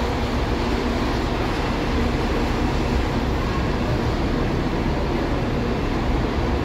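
Diesel bus engine running steadily close by, a continuous low rumble under steady noise.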